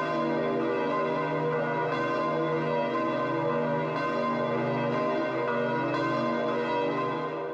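Church bells pealing, many bells ringing together with fresh strikes about every two seconds, fading out at the very end.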